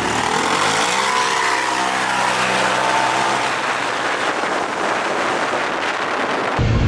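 Honda Talon 1000R side-by-side's parallel-twin engine accelerating hard from a launch-mode start, its pitch climbing over the first couple of seconds and then holding, under a loud rush of wind and tyre noise. Near the end it cuts to a steadier, lower engine drone.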